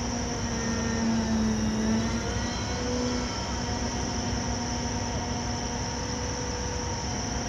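Gas turbines of an Arleigh Burke-class destroyer running at the pier: a steady drone with a constant high whine.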